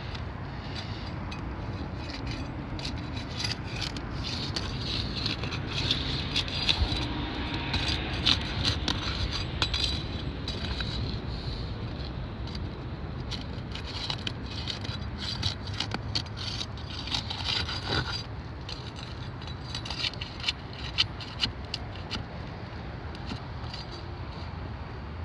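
Scraping, rattling and light tapping of hands-on roofing work on asphalt shingles, over a steady low rumble.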